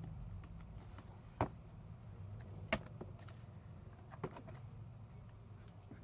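Three sharp clicks about a second and a half apart, with a few fainter ticks, over a low steady hum.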